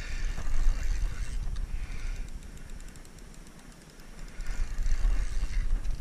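Low rumbling buffeting on the camera microphone, with faint rapid ticking from a fishing reel being wound while a hooked salmon is fought. The rumble eases in the middle and comes back strongly about four seconds in.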